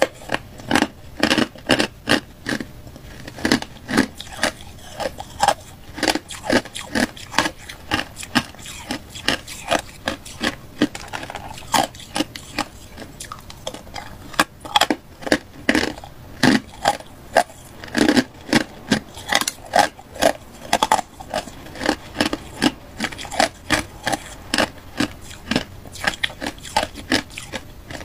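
Hard ice being bitten and chewed: an irregular run of sharp crunches, a few a second.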